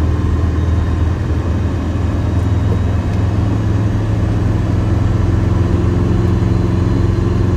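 Mercedes-Benz T1 310 van's engine running steadily at cruising speed, heard from inside the cab as a low, even drone.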